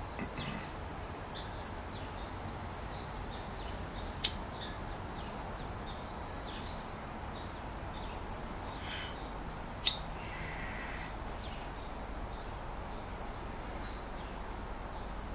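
Steady low background hiss with faint scattered high chirps, broken by two sharp clicks about five and a half seconds apart.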